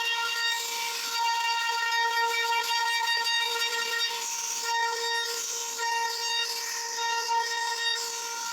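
CNC router spindle running with a steady high whine as its bit cuts wood, with a hiss that swells briefly a couple of times.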